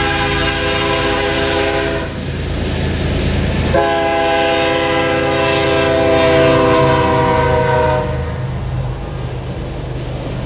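CN GE ES44DC diesel locomotives sounding their horn, a chord of several tones, for a grade crossing. One blast ends about two seconds in, and a longer one runs from about four to eight seconds in, its pitch dropping slightly as the locomotives pass. Under it the diesel engines rumble steadily, and after the horn the loaded coal hopper cars roll by.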